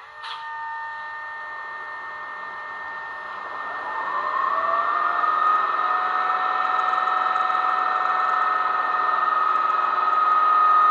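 Digital sound decoder of a Roco HO-scale model of the SNCF BB 22347 electric locomotive, playing the standing locomotive's running sounds: a steady electrical hum, then about four seconds in a whine that rises and levels off into a steady high tone.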